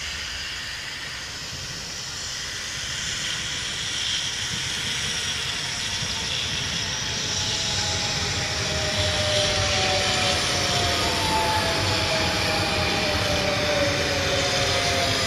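SNCF Z 24500 double-deck electric multiple unit running along the station tracks, growing louder as it draws near. From about ten seconds in, a whine slowly falls in pitch as the train slows.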